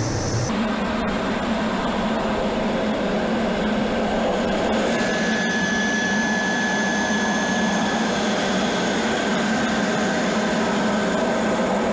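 Steady rushing noise of an A-10 Thunderbolt II's twin General Electric TF34 turbofan engines and airflow as heard inside the cockpit in flight, with a thin high whine joining about five seconds in.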